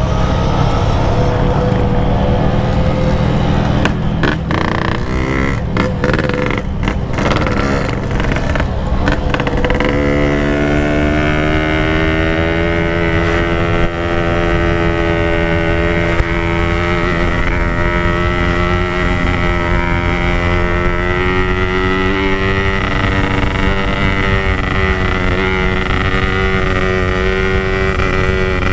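Motorcycle engine running while riding, with wind rumbling on the microphone. The first few seconds are uneven, with a few short knocks; from about ten seconds in the engine settles into a steady cruising note.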